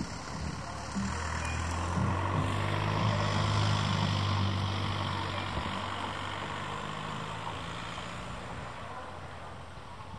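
Railcar running along the track: a steady low hum with overtones that builds from about a second in, is loudest around three to four seconds, then slowly fades.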